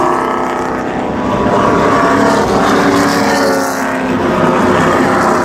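V8 engines of a pack of NASCAR Truck Series trucks running at caution pace, a steady drone of several overlapping engine notes whose pitches drift slowly.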